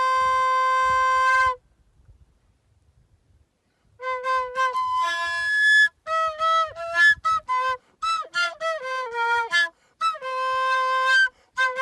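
A solo flute holds a note with a little trill, stopping about a second and a half in. After a gap of about two and a half seconds it plays a quick melody of short notes, with a few held notes near the end.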